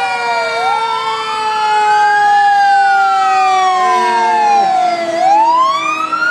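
Fire engine siren wailing in a slow rise and fall, climbing again near the end, over a second steady siren tone that slowly sinks in pitch.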